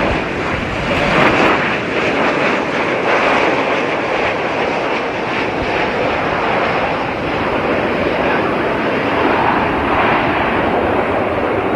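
Jet airliner engines, a loud steady rush of noise with no break.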